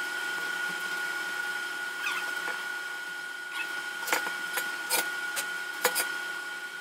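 Light clicks and sharp knocks of steel square tubing and hand tools being handled on a welding frame, a handful of them, most in the second half, over a steady high-pitched whine.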